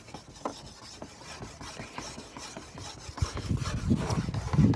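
The gray side of a headlight-restoration abrasive pad scrubbing a plastic headlight lens in repeated back-and-forth strokes, going over spots not yet sanded. The strokes get louder about three seconds in.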